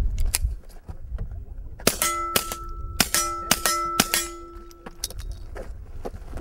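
.22 rimfire pistol fired in a quick string of sharp cracks starting about two seconds in, with steel targets ringing in a clear tone after the hits and dying away a little after five seconds in.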